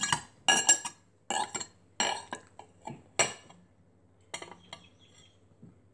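Metal knife and fork clinking and scraping against a plate while cutting pancakes: a quick string of sharp, ringing clinks over the first three seconds or so, then a few fainter taps.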